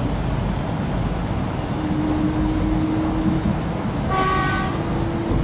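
Interior running noise of an X'trapolis 100 electric train under way, a steady low rumble, with a steady tone joining about two seconds in. About four seconds in, a short horn toot sounds for under a second, most likely the train's own horn.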